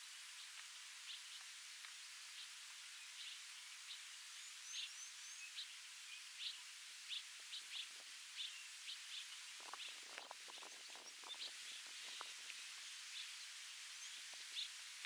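Small birds chirping in short, scattered calls over a steady outdoor hiss, with a few seconds of low crackling and rustling about two-thirds of the way through.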